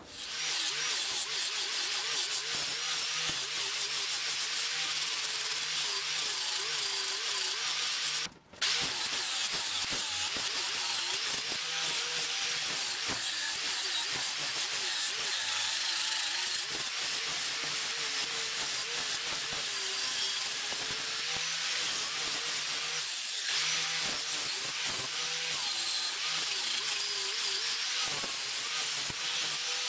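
Angle grinder with a cut-off wheel cutting steel plate, its motor pitch wavering as the wheel is loaded and eased off. The sound breaks off briefly about eight seconds in.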